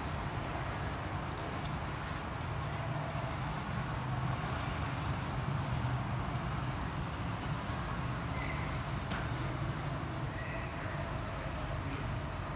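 Steady low drone of engines running, even throughout with no single event standing out.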